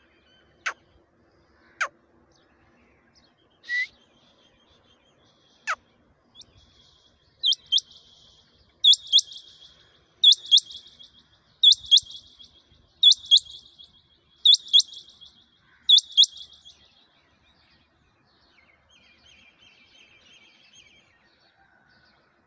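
Rain quail calling: seven loud, sharp double notes, about one pair every one and a half seconds. A few sharp clicks come before them, and there is faint chirping near the end.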